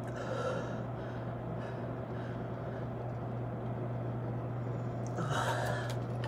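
A man breathing hard during push-ups: two heavy breaths, one about half a second in and a louder one near the end, over a steady low hum.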